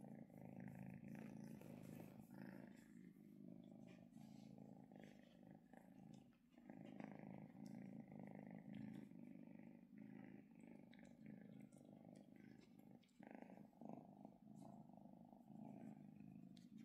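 Dilute calico kitten purring steadily and faintly while being stroked, with brief breaks about six and thirteen seconds in.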